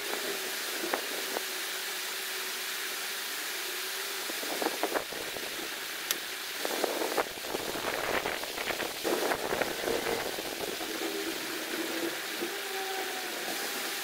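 A tent being unpacked and pitched: fabric rustling with scattered clicks and knocks, busiest between about five and ten seconds in. Underneath is a steady rushing background with a faint hum.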